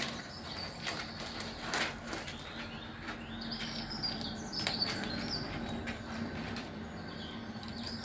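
Small birds chirping and wings fluttering, played through a TV's speaker, with a few brief high chirps in the middle, many scattered sharp clicks and a steady low hum.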